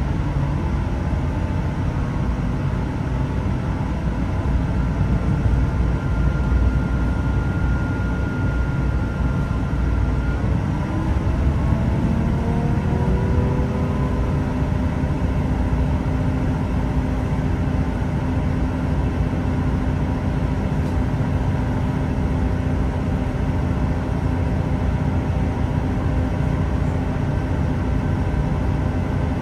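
Class 166 diesel multiple unit running, heard from inside the carriage: a steady low rumble from its underfloor diesel engine and transmission. A whine rises in pitch about ten to thirteen seconds in, then holds steady.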